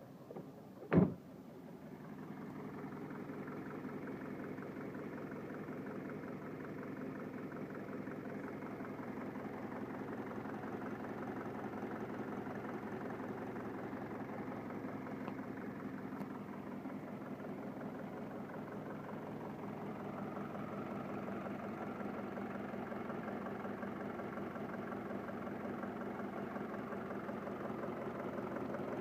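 Mercedes OM601 four-cylinder diesel engine starting about a second in with a short loud clatter, then idling steadily. The idle is the shaking and knocking the owner complains of, a roughness he sets out to cure by cleaning the injectors.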